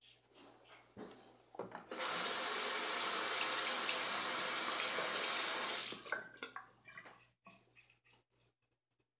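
A bathroom sink tap runs hard for about four seconds as the double-edge safety razor is rinsed of lather and stubble, then shuts off. Before and after it come faint, short scrapes of the razor on stubble.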